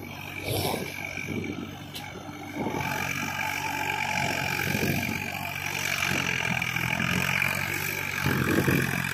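Swaraj 744 FE tractor's three-cylinder diesel engine running steadily under load as it pulls through a muddy, waterlogged paddy field, heard from a distance.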